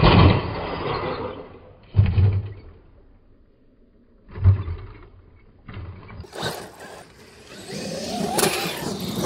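Large RC monster truck crashing and tumbling on grass: heavy thuds as it lands, near the start, about 2 s in and about 4.5 s in. Near the end a small electric RC truck drives close by, its motor whine rising in pitch.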